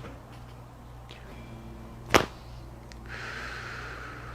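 One sharp, loud crack about two seconds into a chiropractic adjustment, then a long breathy rush of air about a second later.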